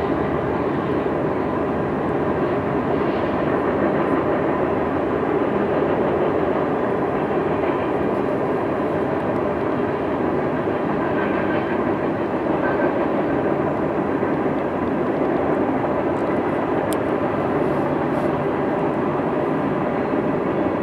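Freight train cars rolling past: a steady noise of steel wheels running on the rails.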